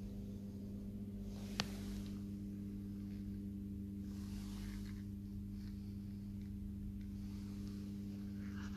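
A steady low hum, with one sharp click about one and a half seconds in and a few faint scuffs later on.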